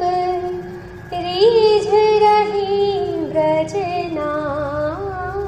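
A high singing voice performing a Hindi devotional song, holding long notes with ornamented turns, over faint backing music.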